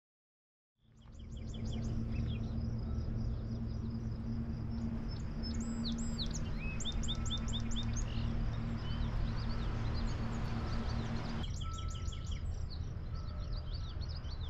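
Songbirds chirping in quick repeated phrases over a low outdoor rumble of wind, fading in about a second in. A steady low hum runs under it until an abrupt change in the background about 11 seconds in.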